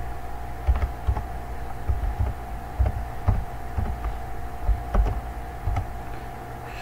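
Computer keyboard being typed on slowly, irregular single keystrokes as clicks with dull thumps, over a steady electrical hum.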